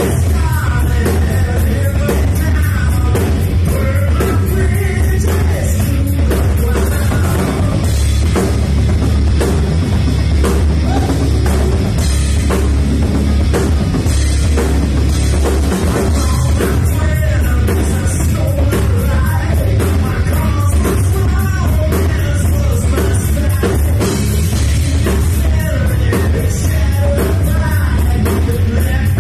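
Rock band playing live: a singer over electric guitar, bass guitar and drum kit, with a heavy bass end.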